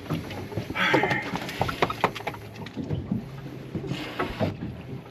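Scattered knocks, taps and scrapes on the fiberglass deck as a freshly caught blackfin tuna is handled beside a bucket, over a low steady hum.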